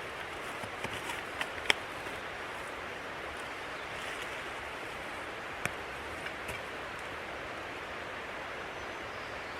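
Digging in forest soil with a folding military entrenching tool: a few sharp knocks and scrapes, the loudest about two seconds in and another just past the middle, over a steady rushing noise.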